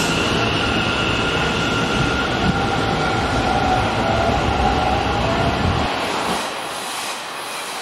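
Hanshin 'Jet Car' electric commuter train accelerating away from a station platform: a whining electric traction motor with steady high tones over the rumble of wheels on rail. The rumble drops away about six seconds in as the train draws off into the distance.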